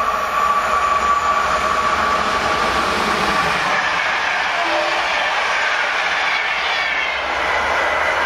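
EP-09 electric locomotive and its intercity coaches passing at about 160 km/h: a loud, steady rush of wheels on rail and air. A high steady whine runs through the first three and a half seconds, then the coaches keep rushing by.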